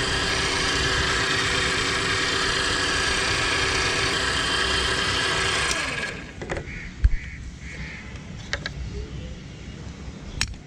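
A motor-driven machine running with a steady whine. About six seconds in it slows and stops, its pitch sliding down. A few scattered clicks and one sharp knock follow.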